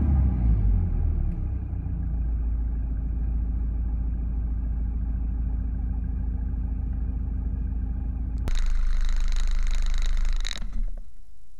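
OM601 2.0-litre four-cylinder naturally aspirated diesel engine settling from a rev back to a steady idle in the first second or so. About 8.5 s in, heard from beneath the car, it becomes a louder, hissier running sound for about two seconds, which then cuts off suddenly.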